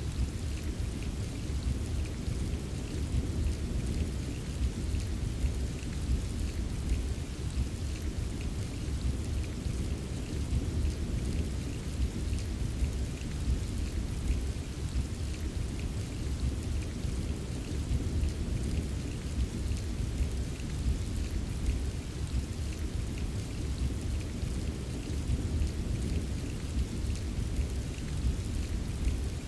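Steady rain ambience: an even wash of rainfall with a continuous low rumble underneath and faint patter of drops.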